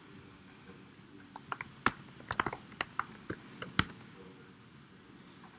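Typing on a computer keyboard: a quick, uneven run of key clicks from about a second and a half in until around four seconds.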